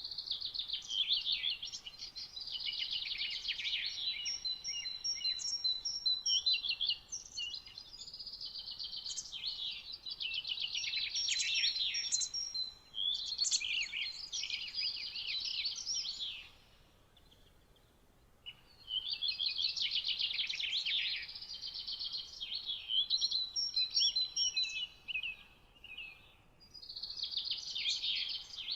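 Songbirds singing in the morning: fast trilled phrases overlapping with a repeated high pipping series, with a short lull a little past the middle.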